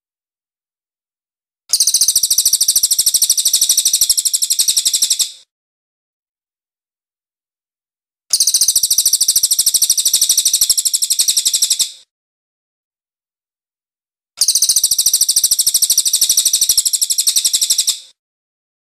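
Cililin (crested jay) calling in three bursts of a fast, high-pitched chattering rattle, each about three and a half seconds long, with silent gaps of about three seconds between them.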